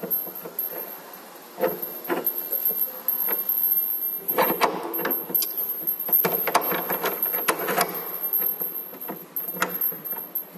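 Metal clicks, scrapes and rattles of an LED display cabinet's fast-lock connector being worked and tightened by hand, irregular and busier from about four seconds in.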